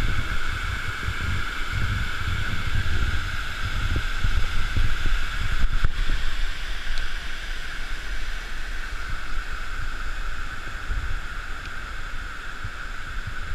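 Hot-spring waterfall rushing steadily into the pool, with uneven low rumbling buffeting the microphone.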